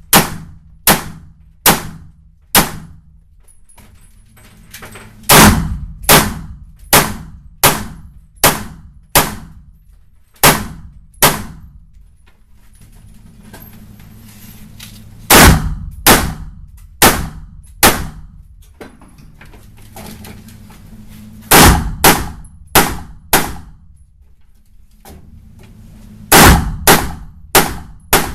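Semi-automatic rifle gunfire from a competitor working through an IPSC rifle course: about two dozen loud shots, roughly one a second, in strings of three to nine, broken by pauses of a few seconds.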